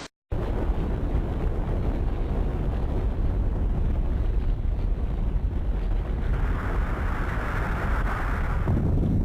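Deep, continuous rumble of a nuclear explosion, starting abruptly after a split-second of silence, with a rushing hiss joining in for the last few seconds.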